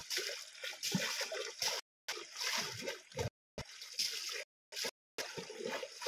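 Water splashing and sloshing as a man sweeps and slaps the surface of a shallow stream pool with his hands. It comes in repeated bursts of about a second, broken by short gaps.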